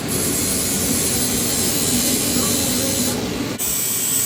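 Flux-core wire welder arc crackling and buzzing steadily, with a sudden change in its sound about three and a half seconds in.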